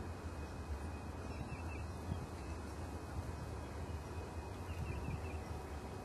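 Faint, short high bird chirps, twice (about a second and a half in and again about five seconds in), over a steady low rumble.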